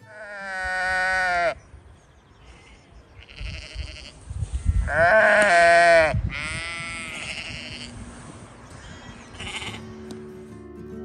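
A sheep bleating several times at close range. A long bleat falls away at the end in the first second and a half, two louder bleats come about five seconds in, and shorter, fainter bleats fall between and near the end.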